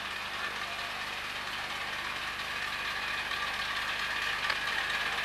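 Miniature railway train running, a steady mechanical engine-like sound without pauses that grows slightly louder toward the end.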